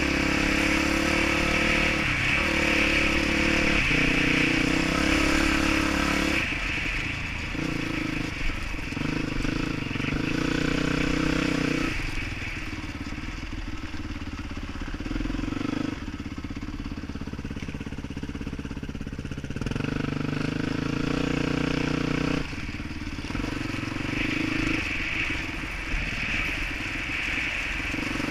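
Dirt bike engine heard from the rider's helmet camera while riding a trail, its pitch stepping up and down as the rider works the throttle and gears. It is quieter through the middle stretch and picks up again near the end.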